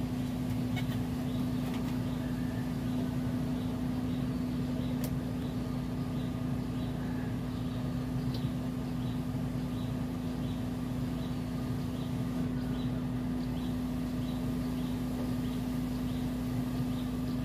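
Vehicle engine idling steadily, with faint light ticking repeating about twice a second.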